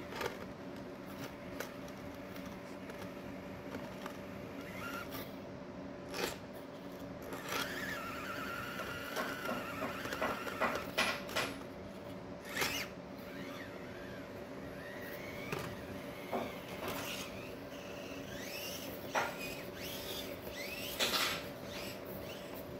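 Small electric RC crawler (Axial SCX24 Deadbolt) creeping over rocks: a steady motor and gear whine, rising briefly in pitch a few times as the throttle comes on, with scattered clicks and knocks of tyres and chassis on stone.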